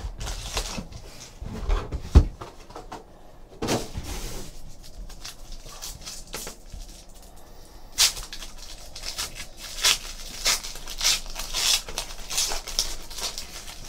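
Hands handling a cardboard trading-card box, pulling packs out with a few knocks, the loudest about two seconds in. From about eight seconds on comes a run of crinkling as a trading-card pack wrapper is torn open.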